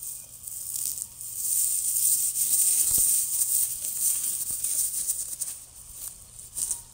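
Dry pine needles and forest debris rustling and crackling as a marshmallow on a stick is rolled and pushed through them, loudest in the middle seconds.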